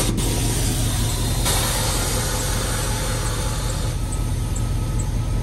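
2003 Chevrolet Silverado pickup's engine idling steadily, with a hiss that rises about a second and a half in.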